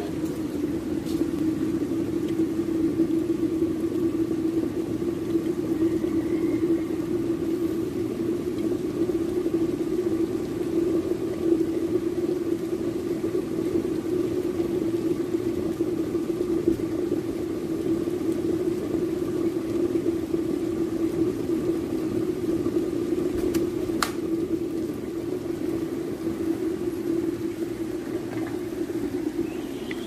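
Tough Mama NTMJK18-G 1.8 L glass electric kettle heating water to a boil: a steady, loud noise of churning, bubbling water. A single sharp click comes about three-quarters of the way through.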